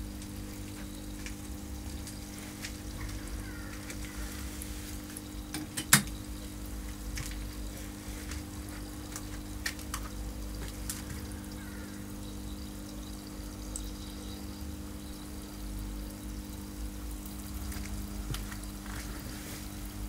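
Salt water bubbling and fizzing around an electrode water heater as heavy DC current passes through the brine, over a steady electrical hum. A single sharp snap about six seconds in is the loudest sound, with a few faint clicks.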